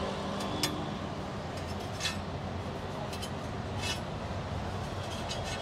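A few scattered light metallic clinks and taps of a knife on a flat steel griddle while chopped vada pav pieces are moved about, over a steady low background noise.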